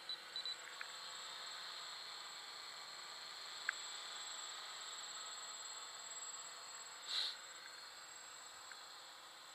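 Faint, steady buzz of a hovering multirotor drone's electric motors heard from a distance, with a few small clicks in the first second and a brief louder burst about seven seconds in.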